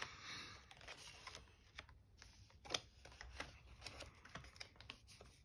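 Faint scattered clicks and rustles of a polymer $5 banknote being handled and slipped into a clear plastic cash envelope in a binder.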